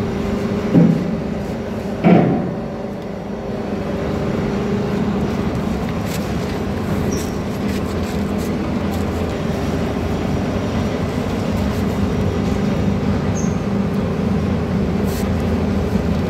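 Steady hum of a 200-ton CNC hydraulic press brake running idle, its pump motor on. Two sharp knocks come about one and two seconds in.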